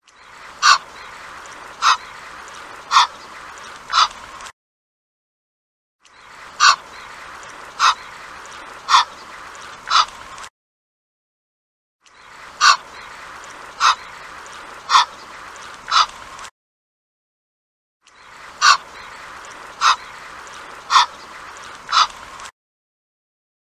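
Egyptian goose calling: four short, pitched calls about a second apart over a steady background hiss. The same four-call sequence repeats four times, with short gaps of dead silence between the repeats.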